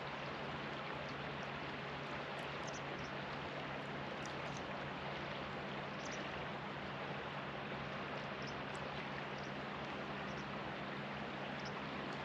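Shallow river water running over a stony bed: a steady rushing ripple with small high plinks and splashes now and then. A low steady hum sits underneath.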